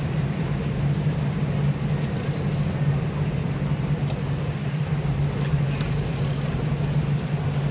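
Steady low machine hum of a garment factory floor, with a few faint light clicks over it.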